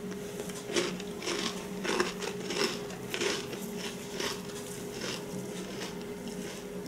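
Crunching as a crisp, freshly baked sugar cookie is bitten and chewed, in short irregular crunches roughly every half second that thin out after about five seconds.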